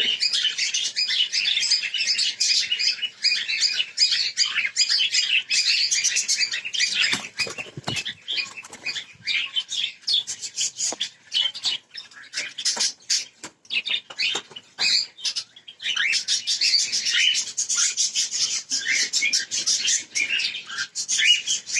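A flock of caged cockatiels chirping and calling almost without a break, with wings flapping and rustling among them. The chirping thins out for a while in the middle, where scattered clicks and flutters stand out, then grows dense again near the end.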